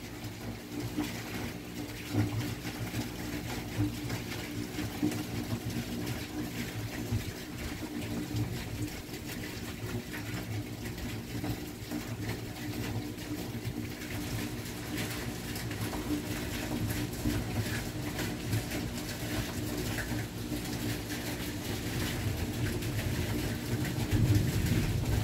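Thunderstorm ambience: a steady rush of rain and wind noise with low rumbling that swells now and then, strongest near the end.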